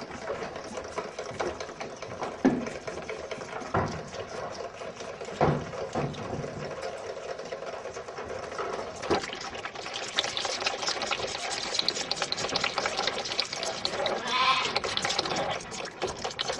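Young dairy calves bleating amid general barn noise, with a few short knocks scattered through.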